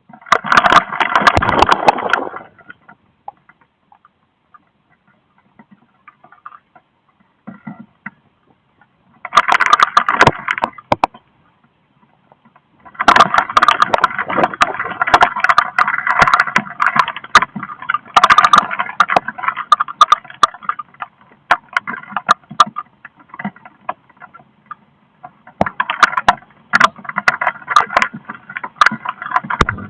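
Strong squall-line wind gusts with heavy rain, coming in loud, crackly bursts as the wind buffets the microphone. There is one gust at the start and another about nine seconds in, then a long stretch from about thirteen seconds on, with near-quiet lulls between.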